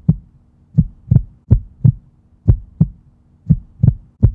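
Heartbeat sound effect: paired lub-dub thumps repeating about once a second, over a faint steady hum.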